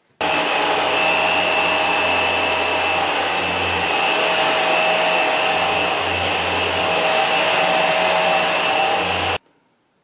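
Hoover bagless upright vacuum cleaner running steadily on a linoleum floor, a loud motor whine with a high steady tone, picking up dust and grit at the edge of a rug. It cuts in just after the start and stops abruptly near the end.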